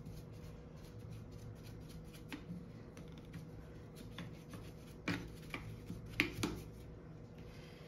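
Paintbrush bristles scrubbing over the metal mechanism of an opened overlock sewing machine to clean out dirt: a soft, faint rustle with small clicks, and several sharper ticks in the second half as the brush knocks against the parts.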